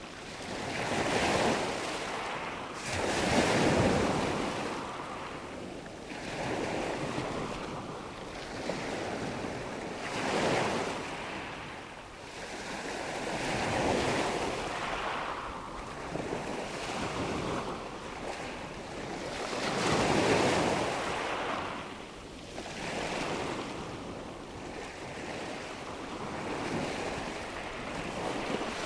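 Ocean waves breaking on a shore, a steady wash of surf swelling into a louder surge every three to four seconds.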